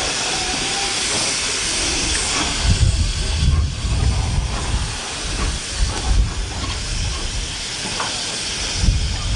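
BR Standard Class 4 4-6-0 steam locomotive moving slowly past, with a steady loud hiss of escaping steam that eases after about three seconds as low rumbling and irregular thumps take over.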